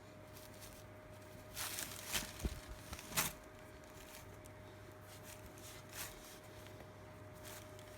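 Plastic packaging rustling and crinkling as a wrapped robe is handled and unwrapped, in a cluster of short bursts about two to three seconds in with one sharp click, then a few faint rustles. A faint steady hum sits underneath.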